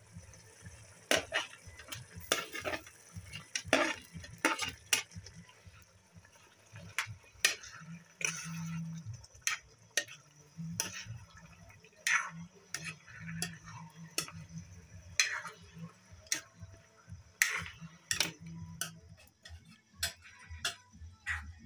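A spoon stirring thick chicken curry in a steel kadai, knocking and scraping against the pan in irregular clinks, roughly one or two a second, over a faint steady sizzle.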